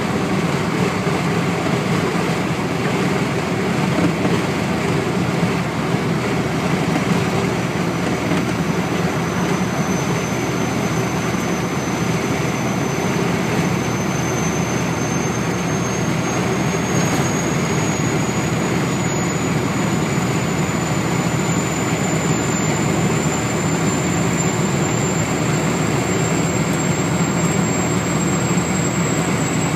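Kenworth SAR's Caterpillar C15 inline-six diesel running steadily, with a thin, high turbocharger whistle that becomes clear about eight seconds in and slowly rises in pitch.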